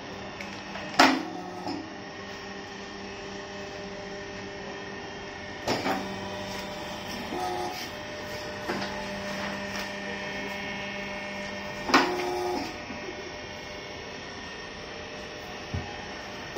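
Hydraulic paper-plate press running, its electric motor and hydraulic pump giving a steady hum, with three sharp clanks about five to six seconds apart as the press cycles.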